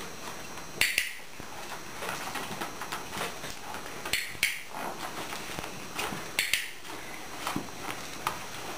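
Sharp clicks from a handheld dog-training clicker, several of them in pairs about a third of a second apart, over low room hiss.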